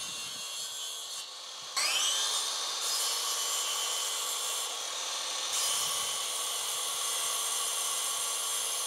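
Mitre saw running with its blade spinning. About two seconds in, it spins up again and gets louder, then runs steadily while it cuts a shallow back-cut slice into primed skirting board, the first step of a coped joint.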